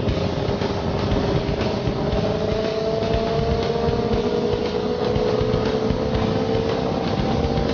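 Honda CBR 650F's inline-four engine running under way on track, its note rising slowly and steadily as the bike gains speed, over a constant rush of wind noise.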